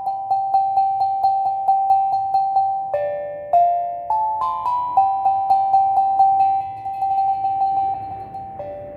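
Steel tongue drum playing a slow, minimalist melody. One note is struck over and over, about three times a second, and each strike rings on. A lower note sounds about three seconds in and again near the end.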